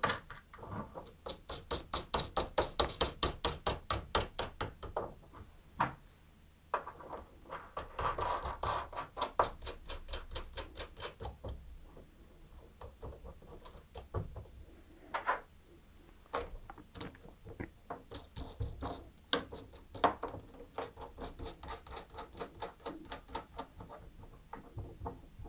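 Glidecam camera mounting screws being spun down and tightened onto the counterweight bolts by hand: three runs of rapid clicks, about six a second, with single clicks between them.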